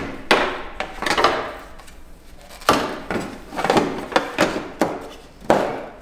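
Plastic casing parts of a stand-type air conditioner being knocked and pressed into place during reassembly: a series of sharp, irregular knocks and clacks, each with a brief ring.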